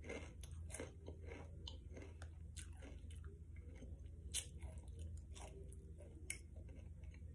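A person chewing crunchy snack chips close to the microphone: irregular crunches, the sharpest about four and a half and six seconds in.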